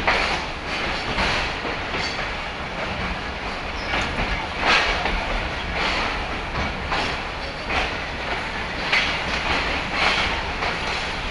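Pakistan Railways passenger coach rolling slowly out of the station, heard from the coach itself: a steady rumble and rattle with irregular sharp clanks as the wheels pass over rail joints, the loudest about halfway through and a cluster near the end.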